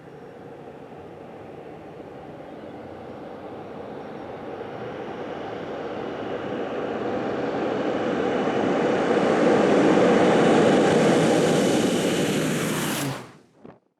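Air Tractor AT-602 crop-duster's Pratt & Whitney PT6A-60AG turboprop engine and propeller approaching low and fast, growing steadily louder for about ten seconds, then cutting off suddenly near the end.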